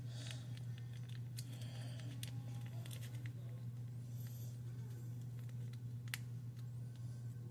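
A steady low hum with scattered light clicks and taps, like cookware and utensils being handled.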